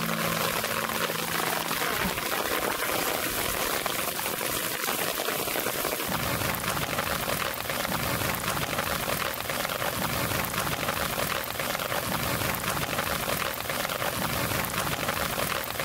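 Steady rain in a rainstorm: a continuous hiss of drops falling on wet ground and puddled water. A held low music chord dies away about two seconds in.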